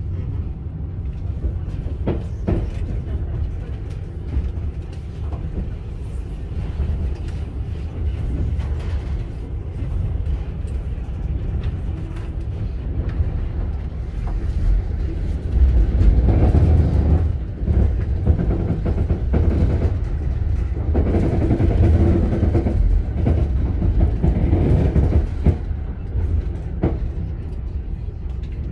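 Train running, heard from inside the passenger carriage: a steady low rumble of wheels on rail with scattered sharp clicks, growing louder for a couple of seconds about halfway through and again for a few seconds later on.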